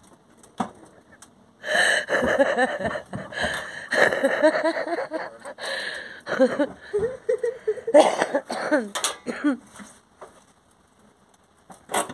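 A person laughing hard in long breathy fits from about two seconds in until nearly ten seconds, with a short run of quick giggles in the middle and a brief sharp burst near the end.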